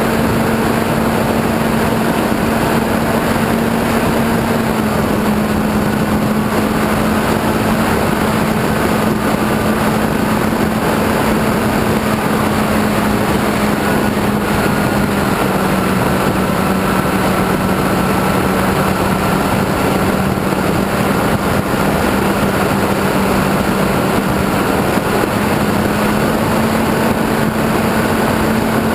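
Onboard sound of an RC airplane in flight: the motor and propeller drone steadily over heavy wind rush. The pitch of the drone settles slightly lower a few seconds in and again midway, then comes back up near the end as the throttle changes.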